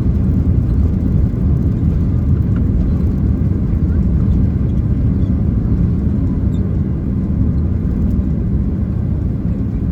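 Steady low cabin rumble inside a Boeing 767-300ER airliner in flight: engine and airflow noise with no distinct events.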